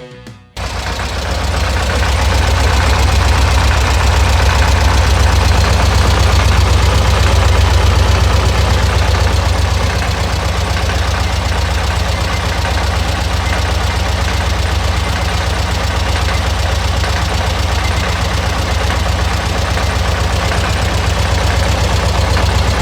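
VW Kombi's air-cooled flat-four engine running steadily, starting about half a second in, with the strange engine noise that fitting a new 30 mm oil pump with a filter has not cured.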